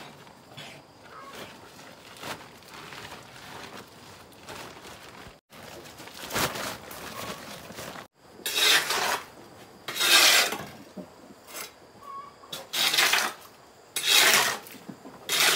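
A long-handled scraper or shovel rasping across the floor of a pig pen in about five loud strokes during the second half. Before that there is quieter rustling and handling of a plastic feed sack and a woven bamboo basket.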